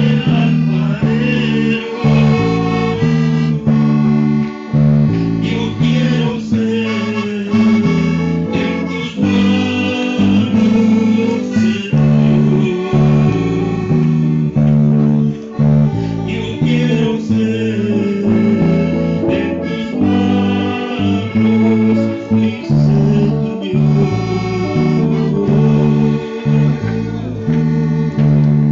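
Music played on guitar and bass, moving through a steady series of chord changes.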